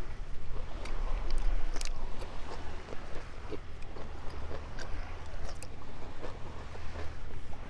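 Close-up chewing and wet mouth smacks of a man eating whole raw sardines, as a run of short irregular clicks. Wind rumbles steadily on the microphone underneath.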